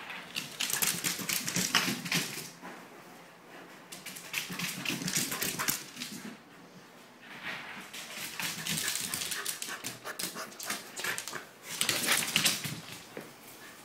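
A Pembroke Welsh Corgi's claws clicking and scrabbling on a hardwood floor as it runs laps, in four bursts of rapid patter that come and go as it passes.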